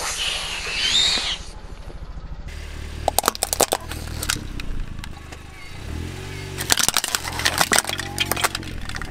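A car tyre rolling over and crushing plastic and rubber toys. It opens with a hiss and squeal of air squeezed out of a rubber toy, then come clusters of sharp cracks and crunches about three seconds in and again from about six to eight and a half seconds, over a low wavering hum.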